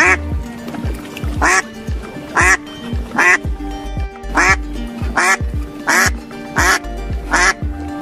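Duck quacking over and over, about one short quack a second, over background music.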